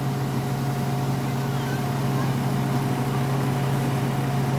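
Fire engine's motor running steadily, an even low hum with a constant pitch.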